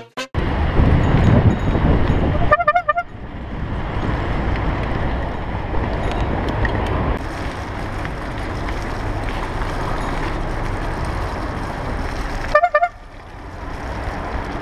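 Bicycle horn honking briefly twice, about ten seconds apart, over steady traffic and wind noise from riding in the street.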